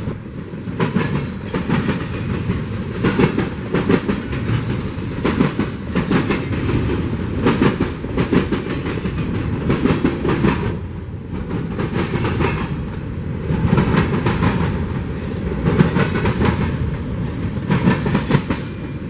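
Union Pacific freight train rolling by, its wheels clattering over the rail joints in repeated clusters of knocks over a steady rumble. A brief faint wheel squeal comes just past the middle.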